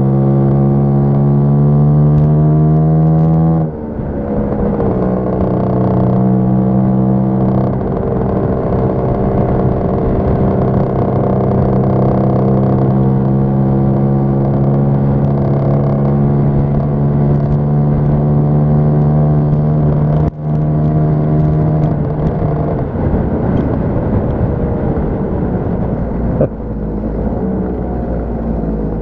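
Lambretta scooter's two-stroke engine running on the road. Its pitch climbs for the first few seconds, then drops suddenly about four seconds in. It holds steady after that, with a brief break in the sound about two-thirds of the way through, and eases off in the last few seconds.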